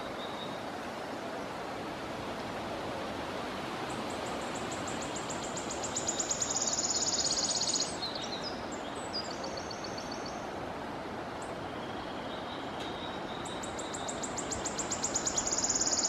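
Wood warbler singing twice: a high series of ticking notes that speeds up into a shivering trill, the first about four seconds in and the second starting near the end, over a steady background hiss.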